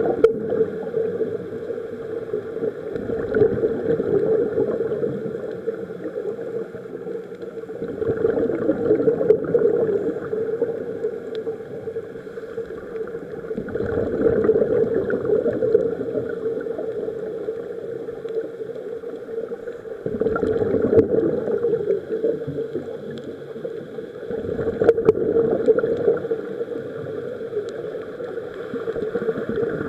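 Scuba regulator breathing heard underwater: a surge of exhaled bubbles gurgling past every five or six seconds, with a steady hum between breaths.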